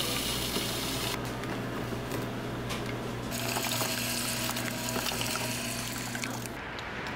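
Bunn frozen slush dispenser pouring slush into a paper cup: a hissing pour that stops and then starts again, over the machine's steady hum. The sound breaks off shortly before the end.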